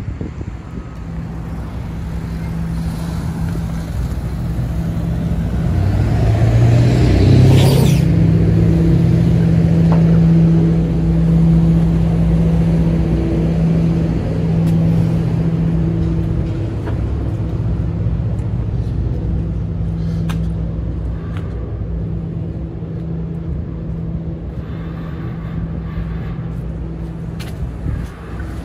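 City street traffic: motor vehicle engines running with a steady low hum, louder about seven to sixteen seconds in as one vehicle comes close, with a few light clicks later on.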